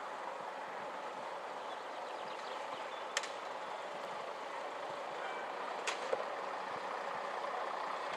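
Bus engine running steadily at a distance, with two sharp clicks about three and six seconds in.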